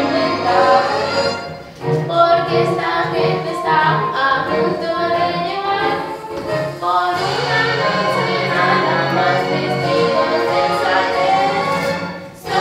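Several voices singing a musical-theatre song together, with light instrumental backing; the singing breaks off briefly about two seconds in and again just before the end.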